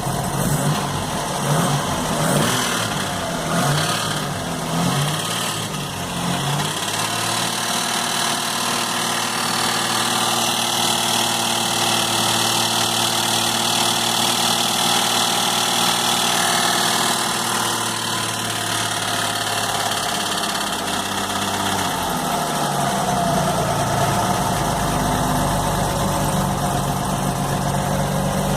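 Ford Capri engine idling with a rattle that the owner suspects is in the clutch or gearbox, since it goes away when the clutch pedal is pressed. The sound is uneven and clattering at first, turns into a smooth, steady engine note about seven seconds in, and changes again to a lower, rougher running about twenty-two seconds in.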